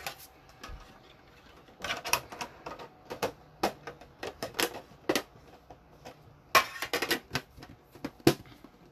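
Plastic-foil wrapper of an Upper Deck hockey card pack crinkling and tearing open: irregular sharp crackles in bunches, starting about two seconds in.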